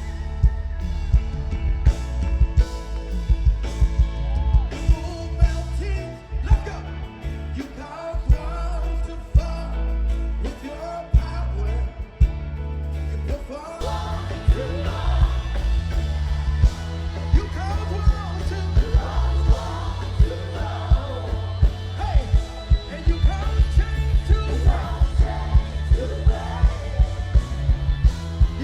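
Live gospel band playing an upbeat, party-style song, with a heavy bass line, a steady driving drum beat and singing over it.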